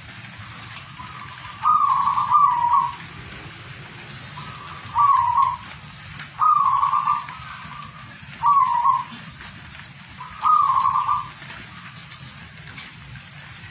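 Caged zebra dove (perkutut) cooing: five short, bubbling coo phrases about two seconds apart, the first one the longest, over a steady background hiss.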